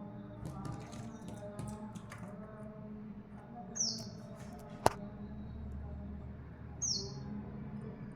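A small bird giving a short, high, downslurred chirp twice, about three seconds apart. A single sharp click falls between the calls, over a steady low background hum.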